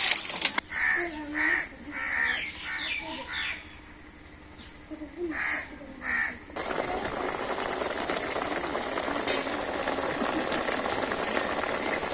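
A crow caws about seven times, in short separate calls over the first six seconds. Then a steady sizzling hiss of a pan of drumsticks simmering in water takes over.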